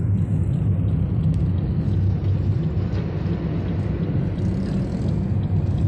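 Steady low rumble of a moving Suzuki car heard from inside the cabin: engine and road noise.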